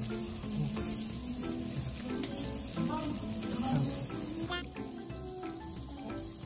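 Sundubu-jjigae (spicy soft tofu stew) boiling hard in a hot earthenware pot, a busy bubbling sizzle that fades about four and a half seconds in. Light background music plays underneath.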